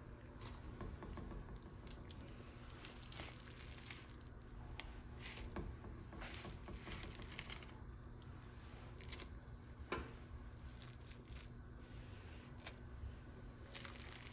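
Sticky cooked glutinous rice being scooped off a plate and dropped into a pot of coconut-milk and brown-sugar syrup: soft squishy scrapes and irregular clicks of the utensil, with one sharper knock about ten seconds in. A faint steady hum runs underneath.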